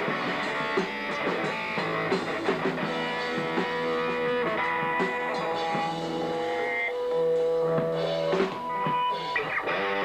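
Live rock band playing electric guitars over a drum kit, with a long held guitar note in the middle.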